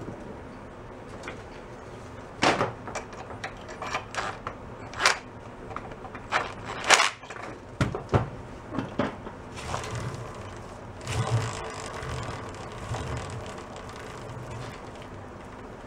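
Metal clanks and short clattering bursts of tool work on a minibike's rear axle. Then the rear wheel is spun by hand, and the drive chain runs over the sprocket with a light whirring rattle that dies away.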